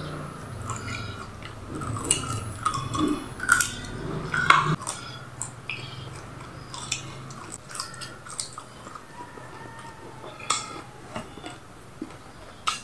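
Close-up chewing and wet lip-smacking as a person eats rice and egg omelette by hand: a run of short mouth clicks and smacks, thick in the first few seconds, then scattered.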